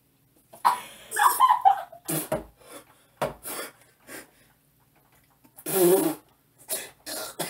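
A man gagging and retching over a paper bag, in short irregular bursts with the loudest heave about six seconds in, his body rejecting a chunky blended fast-food shake. A woman's muffled laughter comes alongside.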